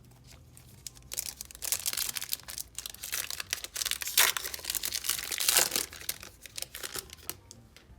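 Wrapper of an NBA Hoops basketball card pack being crinkled and torn open by hand. A dense crackle starts about a second in and thins out to a few scattered crinkles after about six seconds.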